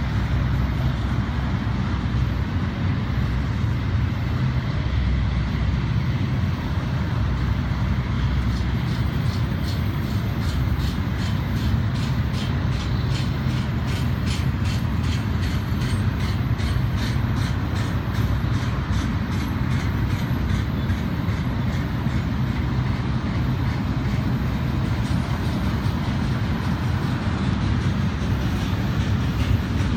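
Double-stack container freight train rolling past: steady noise of wheels on rail, with a run of rhythmic clicking as the wheels cross rail joints in the middle stretch.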